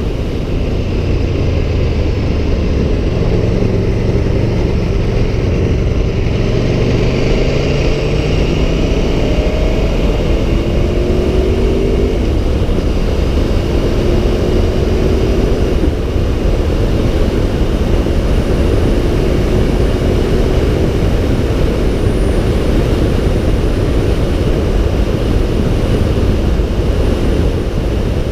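Aprilia Tuono 1100 Factory's V4 engine pulling under acceleration, its pitch rising over the first dozen seconds and then holding fairly steady at speed, with heavy wind rush on the microphone.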